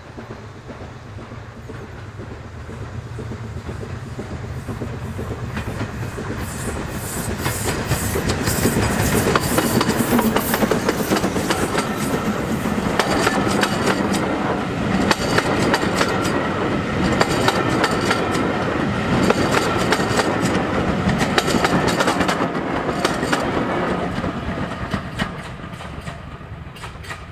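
A BR Standard Class 9F steam locomotive, running tender-first, passes close by at the head of a rake of coaches, with the wheels clicking over the rail joints. The sound builds as the train comes up, stays loud while the coaches go by, then fades away near the end.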